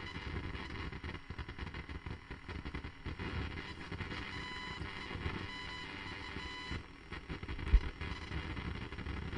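Electronic static and glitch noise: a continuous crackling hiss broken by stuttering dropouts, with faint steady whistling tones in it, and one sharp loud pop near the end.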